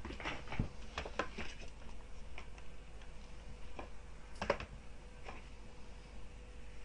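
Scattered light clicks and taps, the kind made at a computer keyboard and mouse: several in the first second and a half, then single ones, the sharpest about four and a half seconds in, over a faint steady hum.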